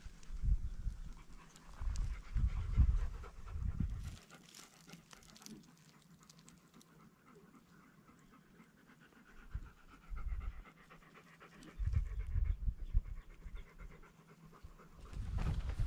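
A dog panting in several short bouts close to the microphone, with a quiet stretch of several seconds in the middle.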